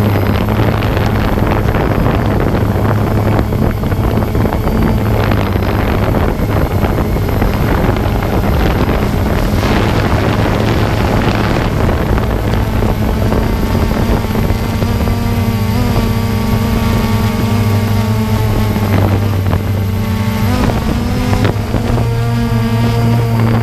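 Drone's motors and propellers buzzing at a steady pitch, with wind rushing over the microphone, strongest in the first half. A few brief shifts in pitch come in the second half as the motors change speed.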